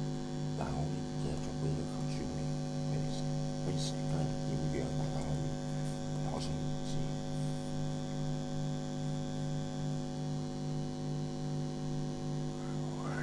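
Steady electrical mains hum, a low buzzing drone made of evenly spaced tones.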